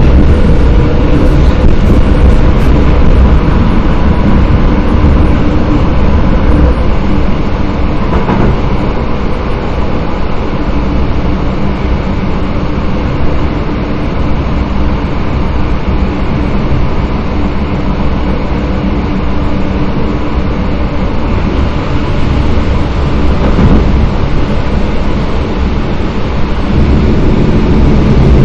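EN57 electric multiple unit running along the line, heard from inside the carriage: a steady, loud rumble of wheels on rails and running gear with a faint motor hum. It eases off a little in the middle and grows louder again near the end.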